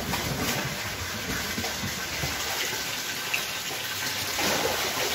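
Water gushing and splashing steadily into fish-farming tanks, with a few small knocks.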